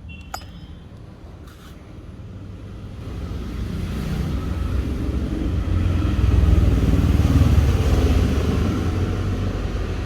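Low engine rumble of a motor vehicle, growing louder over several seconds and then easing off slightly.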